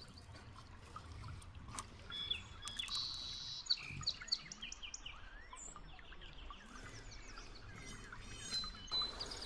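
Several small birds chirping and trilling, with a faint low hum underneath; the calls are busiest from about two seconds in to the middle, and again near the end.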